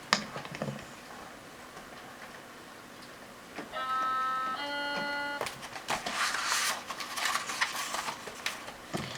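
A two-note electronic chime, the second note lower, followed by a few seconds of paper rustling as a book page is turned.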